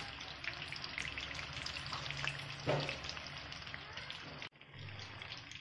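Cauliflower pakoras in gram-flour batter deep-frying in hot oil in a kadhai: a steady crackling sizzle, broken off briefly about four and a half seconds in.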